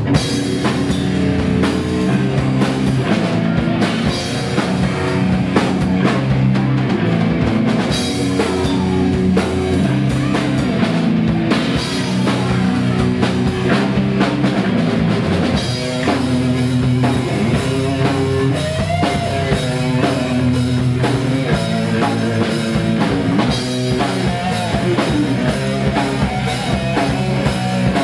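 Rock band playing live: a drum kit, electric guitar and bass guitar in a loud, driving passage.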